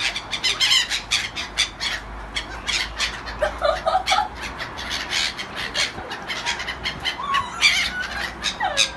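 A flock of gulls calling close by: many short harsh cries packed tightly together, a few of them sliding in pitch.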